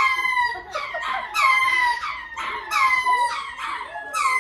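Lemurs calling: a run of loud, wailing cries, each falling in pitch, repeated about every second and a half.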